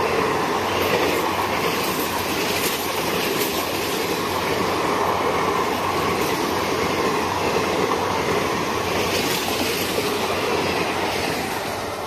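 Passenger train coaches passing close at speed: a steady loud rumble and rattle of steel wheels on the rails, with clicks over the rail joints, starting to fade near the end as the last coach goes by.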